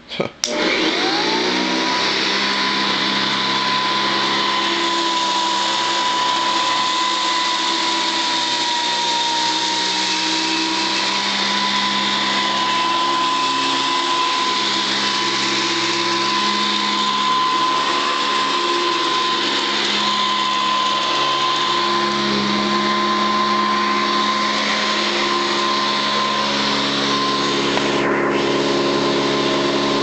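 Hoover Commercial upright vacuum cleaner switched on with a click, its motor spinning up within about a second to a steady high whine and running on evenly as it is pushed over carpet.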